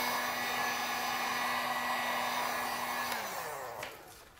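Handheld heat gun blowing hot air over a freshly washed headlight lens to dry it, with a steady fan hum under the rush of air. About three seconds in it is switched off, and the hum falls in pitch as the fan spins down.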